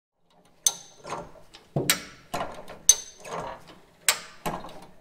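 A run of sharp mechanical clicks and clanks, about eight in five seconds at uneven spacing, each with a brief metallic ring.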